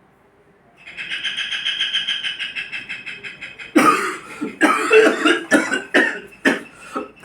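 A person coughing hard, about five or six harsh coughs in a row starting a little over halfway through, the sound of a cough from a chest or throat infection. Before the coughs there is a fast, even, high pulsing sound.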